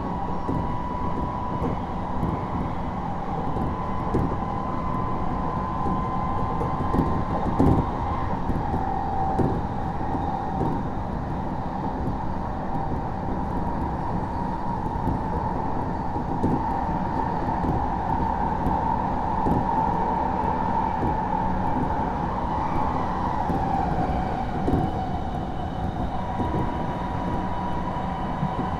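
Onboard running noise of an Odakyu Series 1000 electric train car, heard from inside the car while running between stations. It is a steady rumble of wheels on rail with a steady high whine that drifts slightly in pitch, and a few sharp rail-joint clicks.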